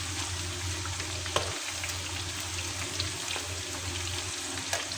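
Chicken fingers deep-frying in a karahi of hot oil: a steady sizzle, with a few brief sharp clicks, about a second and a half in, around three seconds in and near the end.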